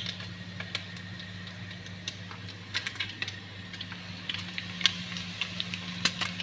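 Bacon and sausage browning in a pan, stirred with a wooden spoon: scattered light clicks and crackles of the spoon and the spitting fat, growing busier from about three seconds in, over a steady low hum.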